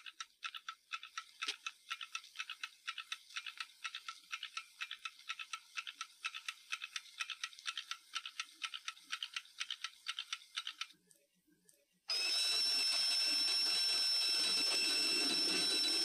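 Mechanical alarm clock ticking fast, about four ticks a second, until the ticking stops near eleven seconds in. A second later its alarm bell goes off, ringing loudly and steadily to the end.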